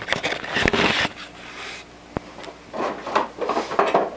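Scraping and clattering of objects being handled, with a single sharp click a little over two seconds in and more scuffing noises near the end.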